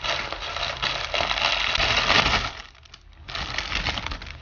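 Plastic packaging crinkling and rustling as it is opened by hand: a crackly stretch of about two and a half seconds, a short pause, then about a second more.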